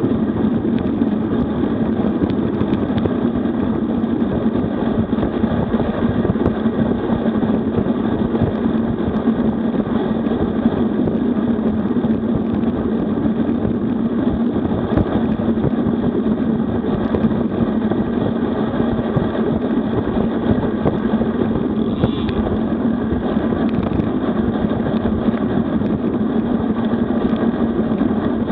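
Steady wind rushing over the microphone of a bike-mounted camera on a road bike riding at about 45–55 km/h, with tyre noise on the asphalt.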